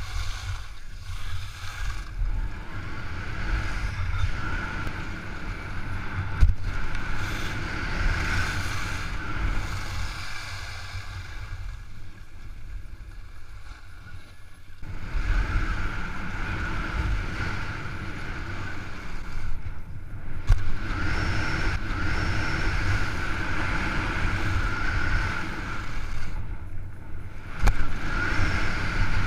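Wind buffeting a body-mounted action camera's microphone and skis sliding over groomed snow during a downhill run, with a few sharp knocks. The rush drops away for a few seconds about halfway through as the skier slows and stands, then picks up again.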